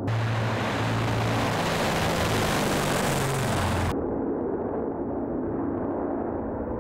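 Tupolev Tu-142's four turboprop engines with contra-rotating propellers running at high power as the aircraft rolls on the runway, a loud roar over a steady low drone. About four seconds in the hissing top of the roar cuts off abruptly, leaving a duller, lower drone.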